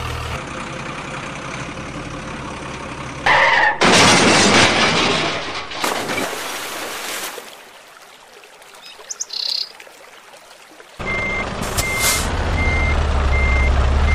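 Dubbed truck engine sound running steadily, then a short hiss and a loud noisy crash and splash about three to four seconds in as a toy truck goes into the water. A quieter stretch with a few bird chirps follows, and near the end the truck engine comes back with a reversing beeper beeping about twice a second.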